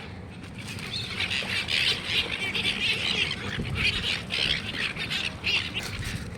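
A flock of gulls squawking over one another as they are fed, the calls thickest through the middle and thinning near the end, over a steady low background rumble.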